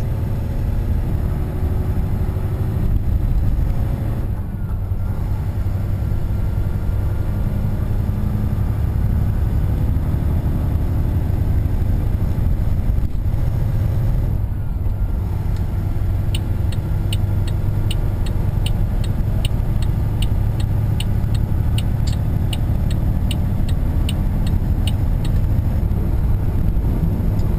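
Steady engine and road rumble of a Mack CXU613 semi-tractor heard from inside the cab while cruising. Past the halfway point a steady ticking starts, about two ticks a second.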